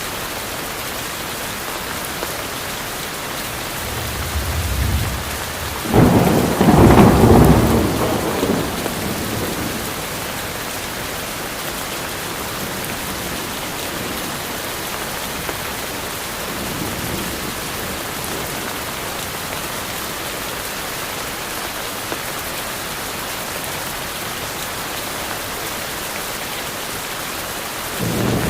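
Steady heavy rain hissing on forest foliage. A low thunder rumble builds about four seconds in and breaks into a loud thunderclap that rolls on for a few seconds. Fainter distant rumbles come later and again near the end.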